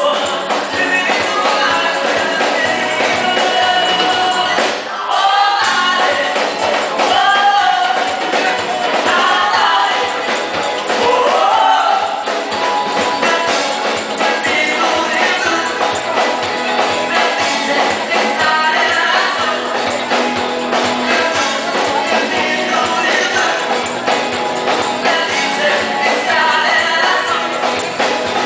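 Live band playing, with several voices singing over percussion and guitar; the sound dips briefly about five seconds in.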